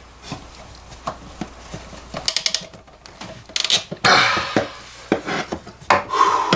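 Hands working on PEX water lines and fittings: scattered clicks, taps and rubbing, with a quick run of sharp clicks about two and a half seconds in and louder rustling bursts around the middle.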